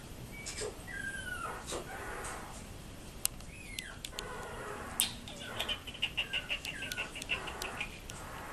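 Young yorkiepoo puppies crying: several short high cries that fall in pitch, then a quick run of high squeaks about halfway through, with a few sharp clicks.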